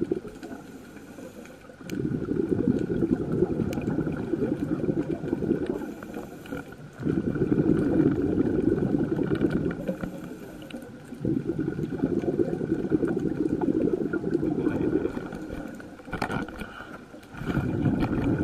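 Scuba diver's exhaled bubbles rushing out of the regulator, heard underwater: four long bubbling bursts with short quieter pauses between them as the diver breathes in.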